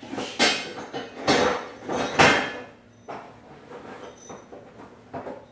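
Metal parts clanking and knocking, with a short metallic ring after the loudest hits: three heavy clanks in the first two and a half seconds or so, then lighter taps.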